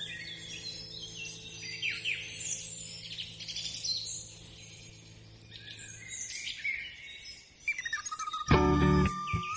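Birds chirping and twittering over a soft, sustained music chord that fades out about six seconds in. Near the end a louder piece of music begins.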